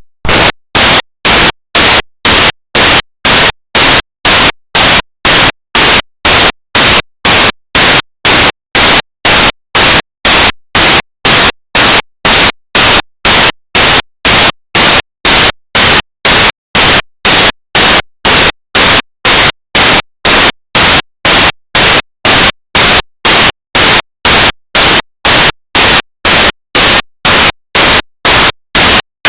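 Corrupted audio track: loud bursts of static hiss chopped on and off at a perfectly even rate of about two a second, the digital garbage left where the recording's real sound was lost in file conversion.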